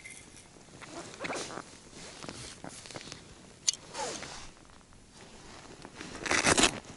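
Jacket zipper being pulled open, loudest about a second before the end, among clothing rustle and small clicks from handling an ice-fishing rod and reel, with one sharp click a little past the middle.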